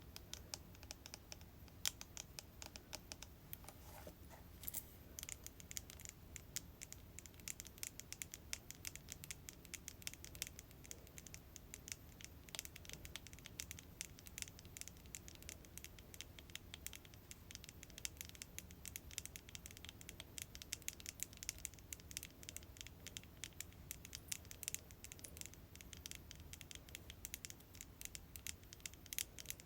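Quiet, close-up tapping on hair product containers: many light, quick taps with no pause.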